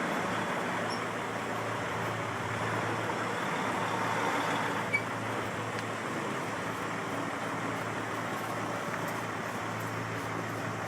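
Heavy truck's engine running steadily, a low hum under a broad rush of noise, with one sharp click about five seconds in.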